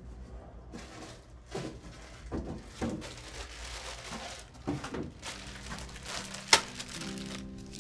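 Plastic packet crinkling and rustling as it is taken off a shelf and handled, in irregular bursts, with one sharp click about six and a half seconds in.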